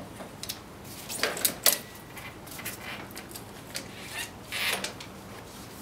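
Handling noises of an electric bike's rear wheel and axle-mounted drive motor being worked out of the frame past the derailleur: scattered clicks, light metal rattles and rubbing, with a cluster of louder clicks about a second and a half in.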